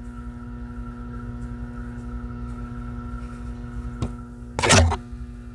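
Ambient music playing in the room: a steady low drone with several overtones. About four and a half seconds in, a short loud knock cuts across it.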